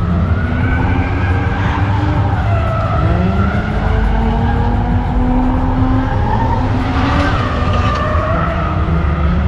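Car tires squealing in long wavering glides, with an engine revving underneath, over a steady low rumble.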